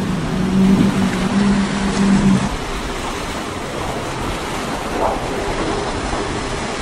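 A boat's outboard motors droning in a steady low hum that stops about two and a half seconds in, over the rush of choppy surf and wind.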